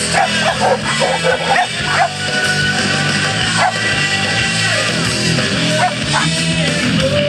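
A dog barking and yipping over music, with a quick run of short barks in the first two seconds and a few single barks after that.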